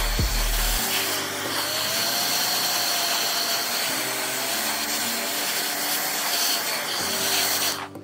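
An electric hot-air blower running steadily with a rushing whoosh and a slightly wavering whine, under background music chords. The blower cuts off abruptly near the end.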